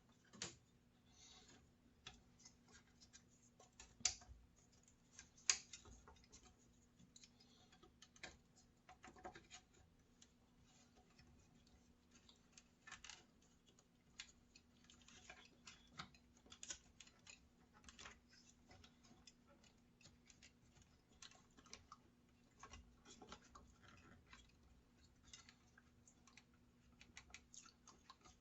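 Faint, irregular small clicks, taps and scrapes of plastic housing parts and wiring being handled and fitted during reassembly of a router, with a couple of sharper clicks about four and five and a half seconds in.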